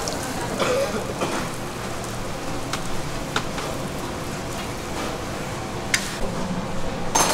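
Youtiao dough sticks sizzling steadily as they deep-fry in hot oil, with a few sharp clicks through it.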